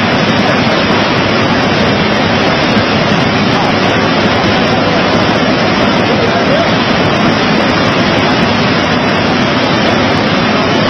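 Floodwater rushing, a loud, steady roar of water that holds level without a break.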